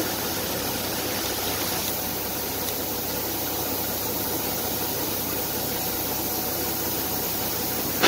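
Semi truck's diesel engine idling steadily under a steady hiss.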